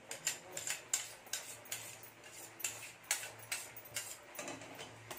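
Slotted steel spatula scraping and knocking against a steel kadai while stirring milk being boiled down to a thick khoa, in an irregular run of clicks and scrapes, two or three a second. The constant stirring keeps the thickening milk from catching on the bottom of the pan.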